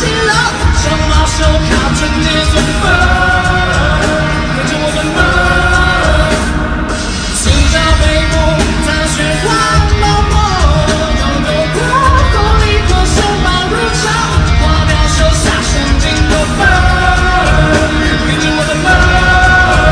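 Live rock-pop song with a male lead vocal and full band, a heavy steady beat and loud sung lines.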